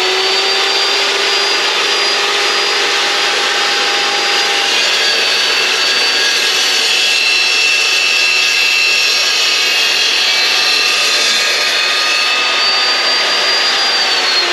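Evolution S355CPS chop saw running at full speed with a steady high whine as its carbide-tipped blade is pulled down through 2x1 steel box section. The whine falls in pitch near the end.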